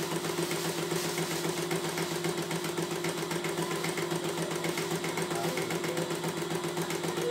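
CNY E900 computerised embroidery machine stitching steadily: a fast, even needle-and-motor rhythm at a constant level.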